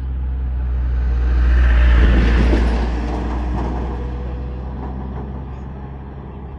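A vehicle passing close by: a rush of noise that swells to its loudest about two seconds in and then fades away, over a steady low rumble.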